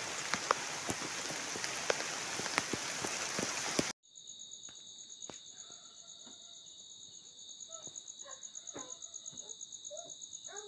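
Rain falling hard on foliage, a dense steady hiss with scattered sharp taps, cut off abruptly about four seconds in. Then a quieter, steady high-pitched insect trill with a few short chirping calls over it.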